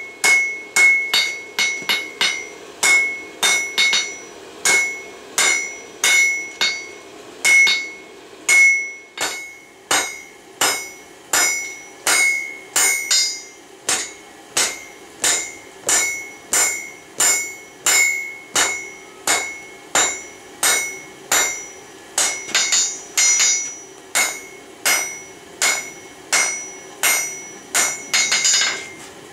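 Blacksmith's hand hammer forging a hot railroad spike on a Peddinghaus anvil, about two blows a second with a couple of short pauses. Each blow leaves a bright ring from the anvil.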